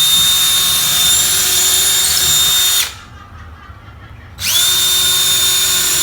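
Electric drill running at a steady high speed in two runs: the first cuts off about three seconds in, and the second starts about a second and a half later. It is boring holes into wall studs.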